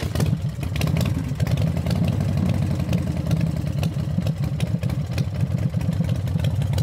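A steady, engine-like low rumble with a fast, dense crackle.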